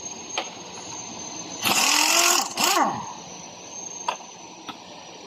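A dog barking twice about two seconds in, a longer bark and then a short one, each rising and then falling in pitch.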